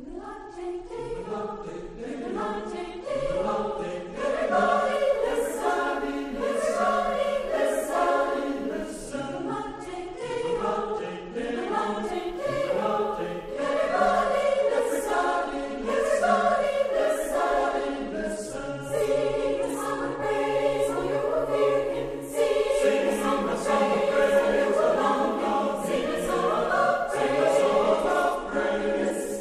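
A choir singing, the voices coming in right at the start.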